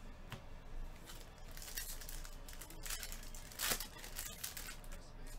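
Plastic trading-card pack wrapper crinkling and tearing as it is ripped open, a run of crackles from about a second and a half in, loudest about two-thirds through.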